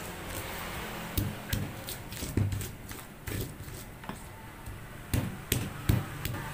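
Stone pestle (ulekan) knocking and grinding in a stone mortar (cobek), crushing raw shallots, garlic, chillies and candlenuts into a spice paste. Irregular sharp knocks, about one a second.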